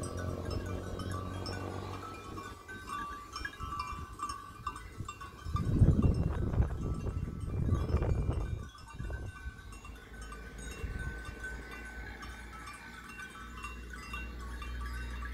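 Goat bells on a passing herd of goats tinkling and clanking: many small bells ringing irregularly and overlapping. A louder low rumble comes in about halfway and dies away a few seconds later.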